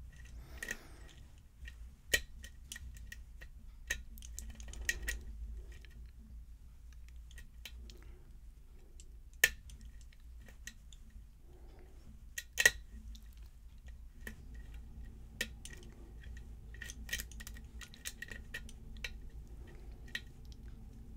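Lock pick and tension tool working the pins of a pin-tumbler challenge lock fitted with serrated pins: scattered small metallic clicks and light scraping, with a few sharper clicks about two, nine and a half, and twelve and a half seconds in.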